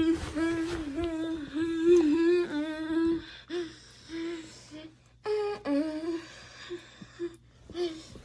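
A person's voice humming one wavering note, held for about three seconds, then in short broken hums with gaps.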